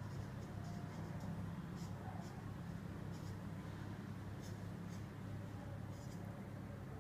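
Marker pen scratching across a football jersey's fabric in short, irregular strokes as it is signed, over a steady low hum.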